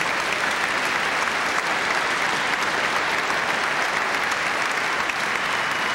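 A large audience applauding steadily, a dense wash of many hands clapping.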